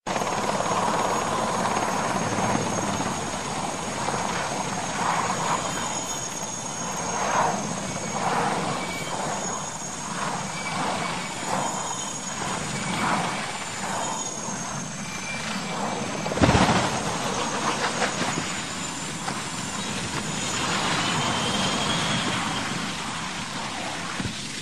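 Military transport helicopter running low overhead: steady turbine and rotor noise with a high, steady whine. About two-thirds of the way through there is a single sharp, loud impact as it hits the ground, and the noise goes on afterwards.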